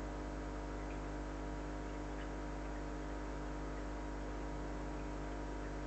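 Steady electrical hum made of several fixed tones, with a few faint ticks scattered through it.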